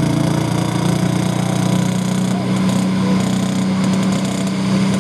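John Deere 7710 pro stock pulling tractor's turbocharged diesel engine running hard at a steady pitch as it pulls the sled.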